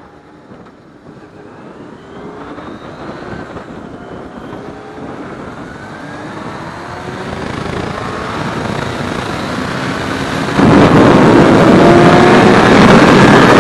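Motorcycle engine accelerating, its pitch rising, with wind noise building over the riding. About ten and a half seconds in, the sound jumps abruptly louder.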